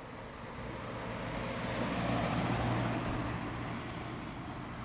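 Mini Cooper S convertible driving past at low speed: a steady low engine note with tyre noise that swells as it nears, loudest about two to three seconds in, then fades as it pulls away.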